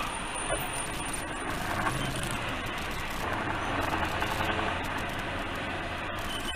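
Steady engine and tyre noise of a vehicle driving on at highway speed, heard from inside the cab.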